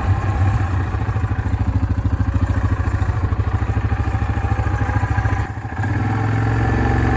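Engine of a vehicle running at low speed with a fast, even pulse. It drops off briefly about five and a half seconds in, then picks up again.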